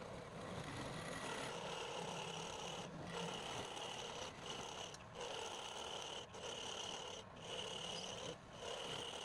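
Rasping scrape of a turning tool cutting a spinning workpiece on a lathe, in repeated strokes with short breaks about once a second as the tool is lifted and set again.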